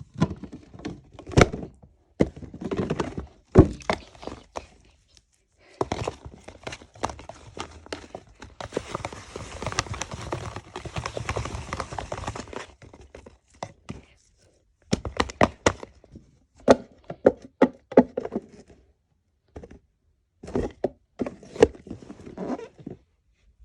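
Fidget toys being handled: irregular clicks, knocks and thunks, with a few seconds of steady rustling in the middle.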